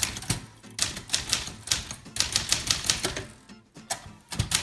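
Manual typewriter being typed at a quick, uneven pace: a rapid run of key strikes clacking against the platen, with a brief pause about three and a half seconds in.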